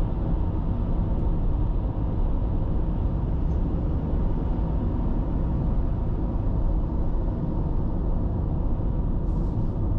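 Car driving along a road: a steady rumble of engine and tyre noise.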